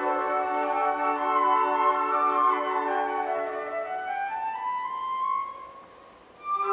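Flute ensemble playing sustained chords in several parts. About four seconds in, the lower parts drop out, leaving one line that rises and holds. After a short hush, the ensemble comes back in near the end.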